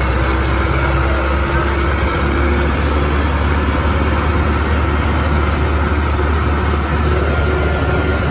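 Sonalika tractor's diesel engine running steadily while driving along the road towing a trolley, a constant low drone.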